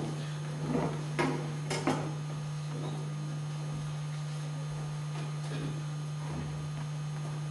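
Steady low electrical hum from the hall's sound system, with a few short knocks in the first two seconds.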